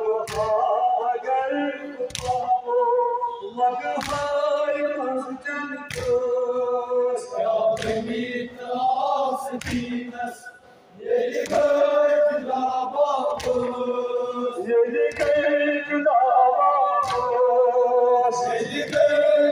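A group of voices chanting a Kashmiri noha lament in unison, with sharp beats about every two seconds; the chanting pauses briefly near the middle.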